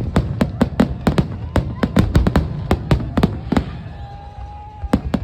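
Fireworks going off in quick succession, several sharp bangs a second. About four seconds in the bangs pause while a steady high tone sounds for about a second, then the bangs start again near the end.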